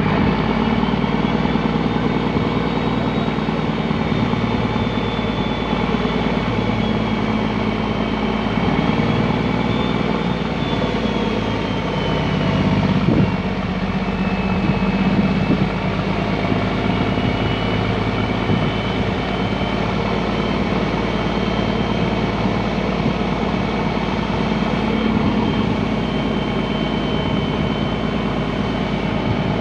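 A fishing boat's engine running steadily, heard from on board, its pitch drifting slightly up and down.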